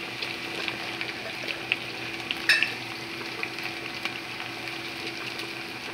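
Rice frying in oil in a stainless steel pot on the stove, a steady hiss with many small crackles over a steady low hum. A sharper click sounds about two and a half seconds in.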